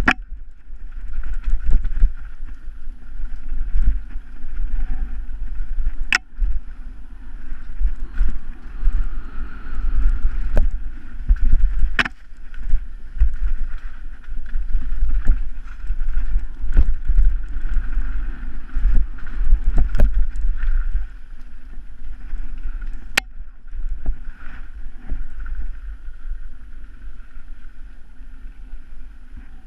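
Mountain bike ridden fast down a rough dirt trail, heard from the rider's helmet: heavy wind rumble on the microphone over tyre noise and the rattle of the bike, with several sharp knocks as it hits bumps.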